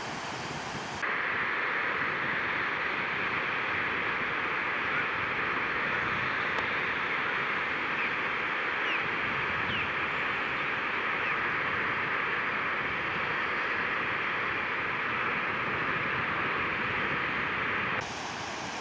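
Steady rush of white water through river rapids. It jumps louder about a second in and drops back near the end.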